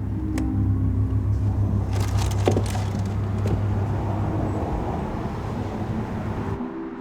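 Low, steady rumble of a car, with a few sharp clicks and rattles about two to three and a half seconds in. The sound cuts off abruptly near the end.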